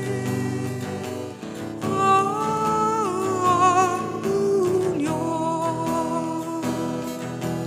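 A song in Indonesian: a solo voice sings a slow melodic line with wavering held notes over instrumental accompaniment.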